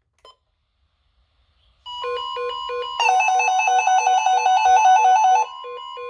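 Electronic beeping tones: a steady high tone with evenly pulsed beeps under it starts about two seconds in, and a louder, fast two-note warble joins a second later, then cuts off suddenly about five and a half seconds in while the steady tone and pulsed beeps go on.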